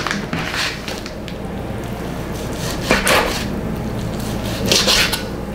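Raw bacon being taken from its plastic packet and cut with a kitchen knife on a plastic cutting board: rustling handling, then a few sharp knocks of the blade against the board, two of them louder, about three seconds in and near the end.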